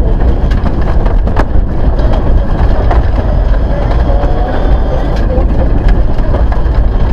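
Mitsubishi Lancer Evolution IX rally car's turbocharged 2.0-litre four-cylinder engine running at speed, heard from inside the cabin, with loose gravel clicking against the underside of the car.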